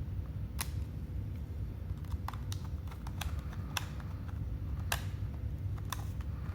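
Scattered light clicks and taps, about seven in all, irregularly spaced, of a small screwdriver and a metal drive bracket being handled while a screw is fastened during a laptop SSD install.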